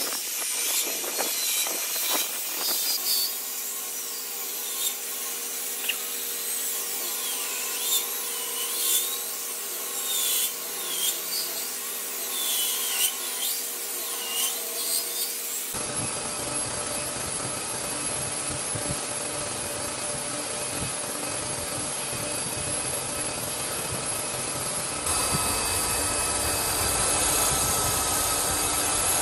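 Handheld electric belt sanders running on a cẩm lai rosewood slab: a steady machine whine with the rasp of the belts on the wood. High squeaky chirps run through the first half. About 16 seconds in the sound changes abruptly to a fuller, even grind, and near 25 seconds it steps up louder.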